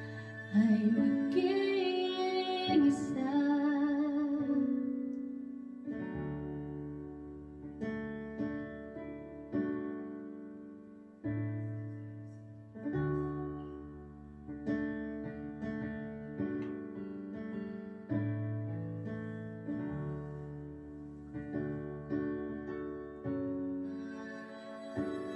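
A woman's voice holds out the end of a sung ballad line with wavering pitch over a karaoke backing track, then the track plays on alone: keyboard piano chords over a bass line, a new chord every second or two.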